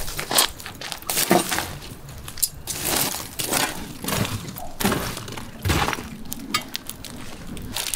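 Pieces of charcoal and charred wood clinking and crunching as the embers are raked and moved about, in a string of irregular sharp knocks.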